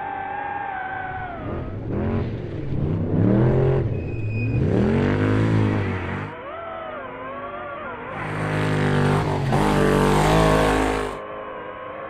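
Class 6100 off-road race truck engine running at a steady pitch, then revving up and down in several swells. The loudest surges come about two to six seconds in and again from eight to eleven seconds, the second with a rush of tyre-and-dirt noise.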